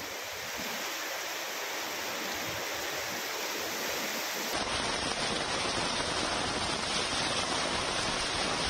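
Heavy rain pouring down in a steady, dense hiss. About halfway through it changes to a fuller, deeper downpour sound.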